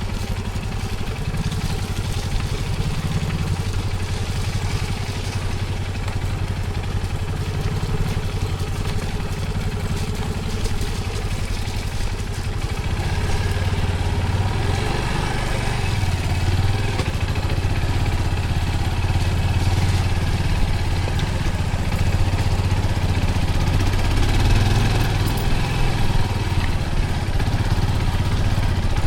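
Small motorcycle engine running steadily while the bike rides along, its pitch wavering a little with speed and growing somewhat louder about halfway through.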